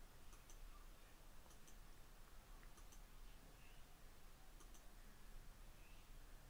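Near silence: room tone with faint, sharp clicks, mostly in pairs, every second or so.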